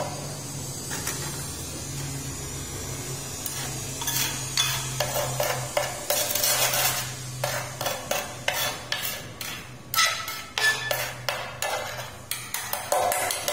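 Small steel trowel scraping wet cement grout across ceramic floor tiles, working it into a cracked tile joint. The scraping is steady at first, then turns into a quick run of short strokes from about four seconds in.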